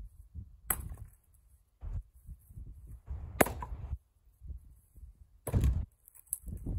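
Splitting axe striking firewood rounds on a chopping block: four separate chops and thunks a second or two apart, the third the loudest and deepest.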